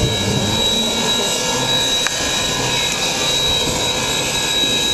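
Steady hiss and rush of live steam locomotive No. 2317 under steam, with one sharp click about two seconds in.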